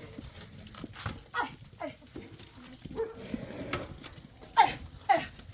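Several short animal calls that fall in pitch, the loudest two close together near the end.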